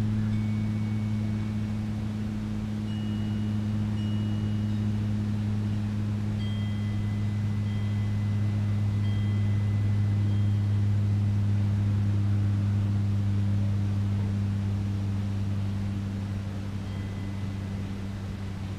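A steady low engine or motor hum that swells about halfway through and fades near the end, with a few faint, short, high chime-like notes now and then.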